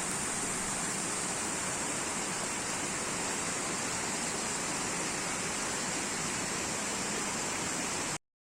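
Flowing water, a steady, even rush without any break, which cuts off abruptly near the end.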